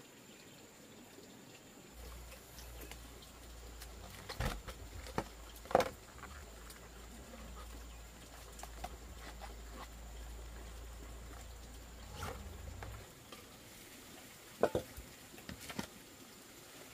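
Cabbage leaves being pulled apart and handled in a plastic basin of water: light rustling and dripping, with a few sharp snaps or knocks, two around five seconds in and another near fourteen seconds. A low, steady rumble runs underneath through most of it.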